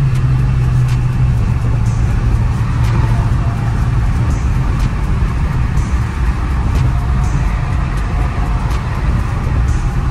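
Steady road and engine noise inside the cabin of an Infiniti Q50 3.0t twin-turbo V6 cruising at highway speed, with a constant low drone and a faint tick about once a second.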